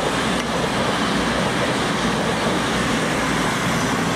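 East Midlands Trains diesel passenger train passing close by at speed: a loud, steady noise of wheels on rail and the train's rush.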